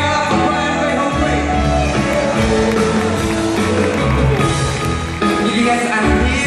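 Live band and orchestra playing a pop ballad, loud and steady, heard from the arena stands.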